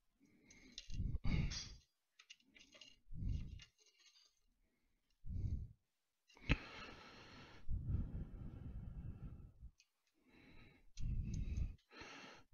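Irregular scrapes and clicks of small metal captive T-nuts being dropped into an aluminium extrusion track and turned into place by hand with a small tool. The sounds come as separate short bursts, with a sharp click about a second in and the longest sound about six and a half seconds in.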